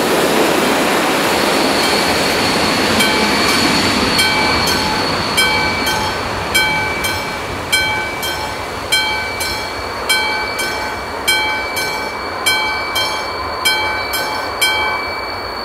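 Passenger train rolling past over the crossing and fading away, then the crossing's mechanical warning bell striking about once every 0.6 s over a thin steady high tone, the strikes stopping near the end.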